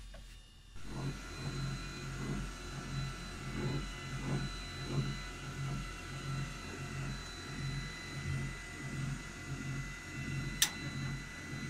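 Electrical turret equipment inside a Leopard 2 tank (the E-WNA turret drive or the ventilation fan) switching on about a second in, then running with a steady motor hum that pulses about one and a half times a second. A sharp click near the end.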